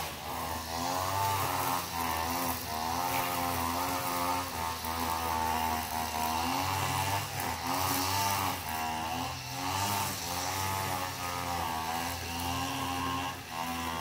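Small engine of a motorised cutting machine running under load, its pitch rising and falling about once a second as it works.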